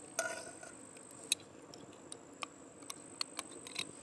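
A metal spoon scraping and tapping against a container of desi ghee and a frying pan: a brief ringing scrape just after the start, then scattered light clicks.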